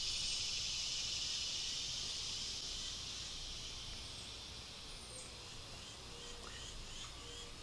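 Steady high-pitched insect chorus that slowly fades, with a few faint bird chirps in the second half.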